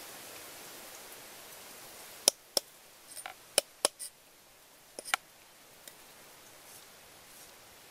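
Knife blade knocking on a wooden cutting board as a fish is scaled and cut: about seven short, sharp knocks in two clusters, from about two seconds in to about five seconds in.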